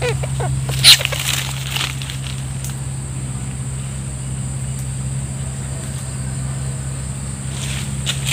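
Wire-mesh cage rat trap with a caught rat giving one sharp knock and rattle about a second in as it is picked up, over a steady low hum.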